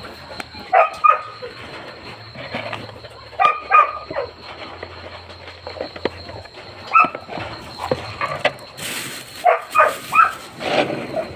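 Kennel dogs barking in short bursts, two or three barks at a time, several times over.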